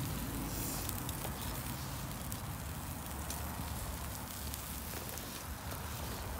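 Barbecue grill sizzling with chicken and corn on it: a steady hiss with scattered sharp crackles.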